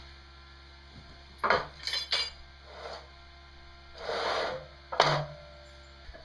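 Metal parts being handled: several sharp clanks and knocks, with a short scrape about four seconds in, over a faint steady hum.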